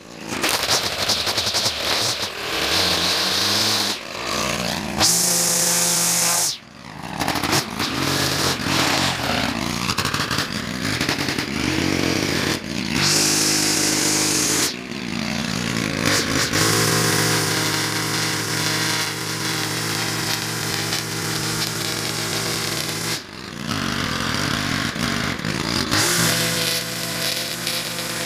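Stihl gas string trimmer running, its engine revving up and dropping back repeatedly as the spinning line edges grass along a concrete sidewalk, with stretches of high hiss from the cutting line.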